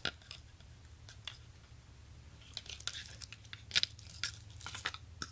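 Plastic sunglasses being handled: scattered light clicks from the frame and crinkling of the clear plastic wrap on the hinge, busiest in the second half.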